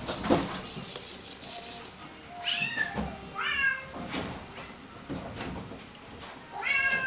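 Bengal kitten meowing three times: short, high meows about two and a half seconds in, again just after, and once more near the end.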